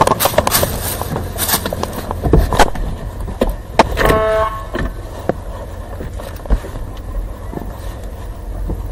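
Body-worn camera rubbing and knocking against clothing as the officer moves, over the steady low hum of a running patrol car. About four seconds in, a brief pitched tone sounds for about half a second.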